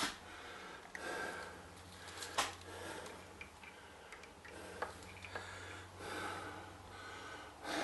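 A person breathing and sniffing close to the microphone while moving about in a small room, with a few sharp clicks and a faint steady low hum underneath.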